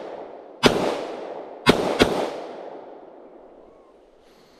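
Three 9mm shots from a Ruger Security-9 pistol: one about two-thirds of a second in, then two close together about a second later. Each crack is followed by a long echo that dies away over the next couple of seconds.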